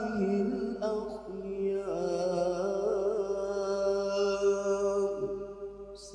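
A man's voice singing in the melodic Qur'an-recitation style: one long drawn-out vowel, ornamented with wavering turns of pitch, as the closing sung prayer upon the Prophet is extended. It fades out near the end.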